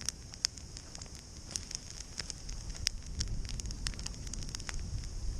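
Wood campfire burning and crackling, with irregular sharp pops and snaps over a steady hiss.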